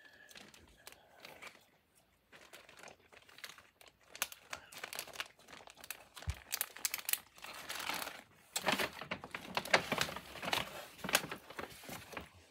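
Clear plastic zip bag crinkling as hands rummage through it: irregular crackles, sparse at first, then busier and louder in the second half.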